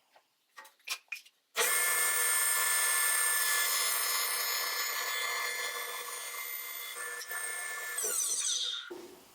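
A few light clicks, then a 1996 Reliant 6-inch jointer fitted with a Byrd Shelix helical cutterhead starts abruptly and runs with a steady whine. About eight seconds in it is switched off and winds down, falling in pitch.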